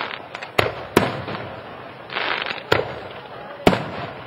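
Aerial firework shells bursting: four sharp bangs at uneven intervals, with a rush of noise between them.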